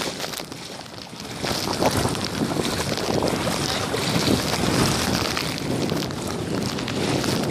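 Wind buffeting the microphone, with seawater sloshing and swishing around legs wading through shallow water; it grows louder about one and a half seconds in.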